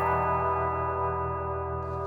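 Background music: several sustained, ringing tones held together and slowly fading, over a steady low drone.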